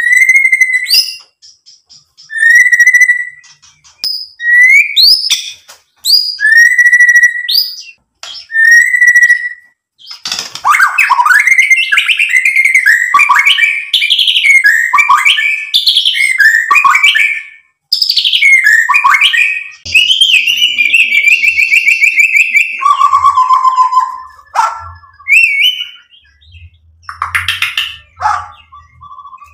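White-rumped shama (murai batu) singing: first a string of short, clear, rising whistles spaced a second or two apart, then from about a third of the way in a long, fast run of varied song phrases with a buzzy trill, a male in full song.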